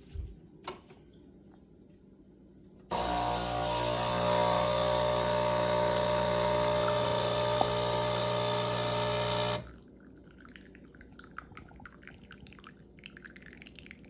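Nespresso Inissia espresso machine running a water-only cycle: its pump hums steadily while hot water streams from the spout into a glass. It starts abruptly about three seconds in and cuts off after about seven seconds.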